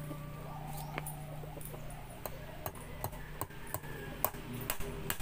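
Irregular sharp clicks and taps, a dozen or so, over a low steady hum that fades out about two seconds in.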